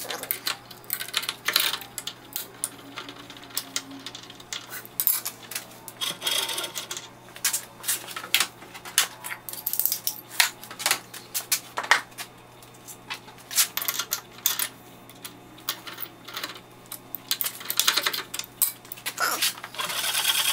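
Irregular clinks and knocks of steel on steel: wrenches and clamp parts handled on a milling machine's table while the blade clamp is moved and the cutter is swapped, over a faint steady hum.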